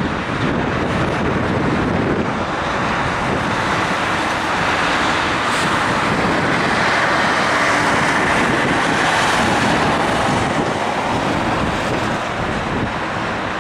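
Jet engine noise from a Boeing 747-400's four turbofans on the runway, a dense, steady rush that swells in the middle and eases toward the end, with wind buffeting the microphone.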